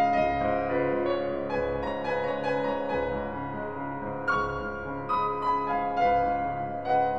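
Slow background piano music: chords and single notes struck about once a second and left to ring and fade.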